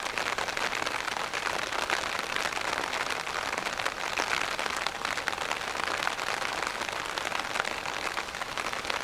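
Heavy rain falling on an umbrella held over the microphone: a steady, dense patter of drops hitting the canopy.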